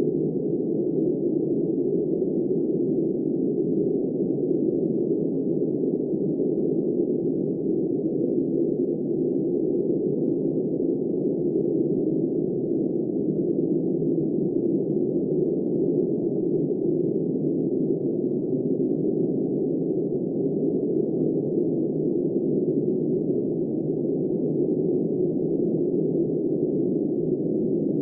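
Blizzard wind, a steady, deep, muffled rush that neither gusts nor changes.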